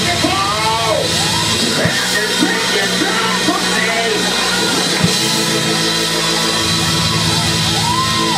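Church organ holding sustained chords, with a voice singing in rising and falling phrases over it through the PA. A few drum hits land in the middle, the clearest about five seconds in.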